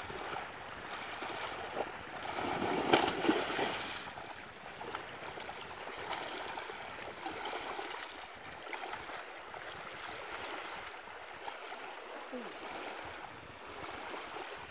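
Splashing in shallow water as a shovelnose shark is hauled into the shallows and thrashes off, loudest around two to four seconds in with one sharp splash near three seconds. After that, a steady wash of small waves at the shoreline.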